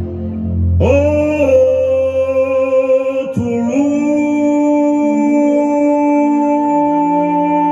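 A man's amplified voice singing long wordless notes, sliding sharply up into a held note about a second in and again at about three and a half seconds, then sustaining one steady tone.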